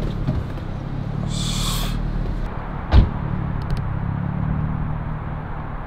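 Car engine idling with a steady low hum. A short hiss comes about a second and a half in, and a single sharp thump about three seconds in.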